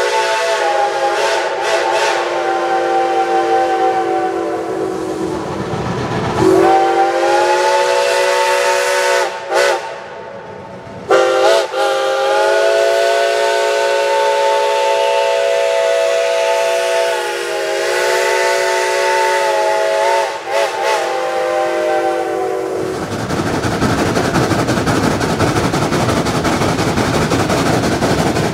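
Shay geared steam locomotive's whistle blowing a long chord of several tones. It breaks briefly about a third of the way in and sweeps up in pitch each time it opens again. About four-fifths of the way through the whistle stops and a steady rush of steam takes over.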